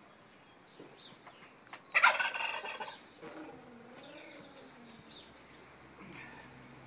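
A loud, rapid rattling animal call about two seconds in, lasting about a second, followed by a lower wavering call.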